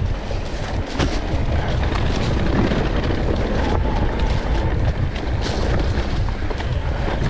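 Heavy wind rumble buffeting the microphone of a camera riding on an enduro dirt bike, over the motorcycle's engine, with scattered knocks from the bike jolting over rough ground.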